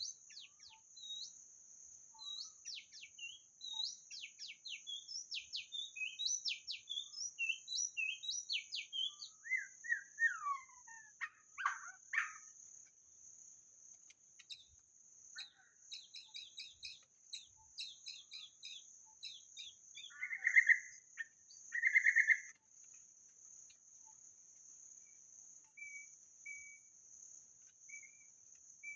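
White-rumped shama singing a varied, fast song of whistled notes, sweeps and trills, with two loud, full notes about two-thirds of the way through, over a steady high insect drone.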